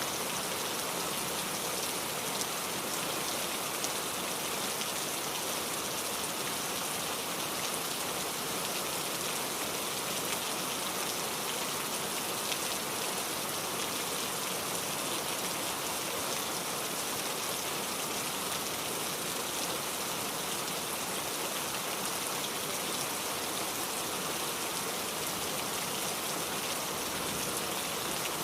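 Steady rain falling and pattering on surfaces, an even hiss with occasional slightly louder drops.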